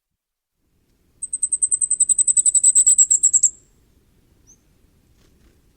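Common firecrest singing: a rapid run of very high, thin notes, about two seconds long, growing louder toward the end.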